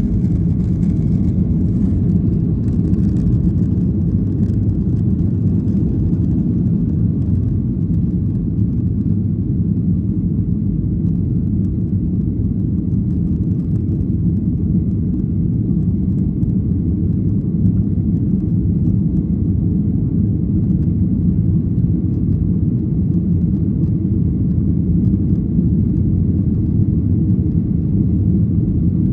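Steady low rumble of airliner cabin noise, engines and airflow during the climb after takeoff.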